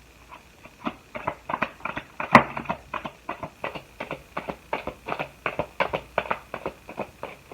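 Tarot cards being shuffled by hand: a quick run of light card slaps, about four or five a second, with one sharper snap about two and a half seconds in.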